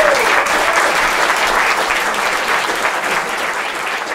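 Small audience applauding at the end of a string-band tune, with a short voice-like whoop right at the start. The clapping slowly dies down.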